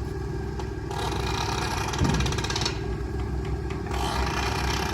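Portable air compressor's engine running steadily. Two bursts of hissing air come over it, the first about a second in and the second near the end, with a brief thump in between.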